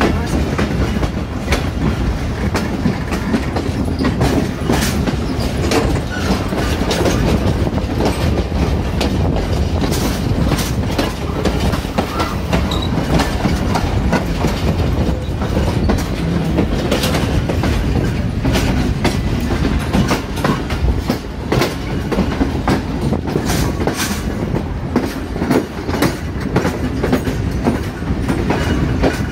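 Wheels of a moving passenger coach running on the rails, heard from aboard the coach. A steady, loud low rumble is broken by frequent irregular clacks as the wheels cross rail joints and points in the yard tracks.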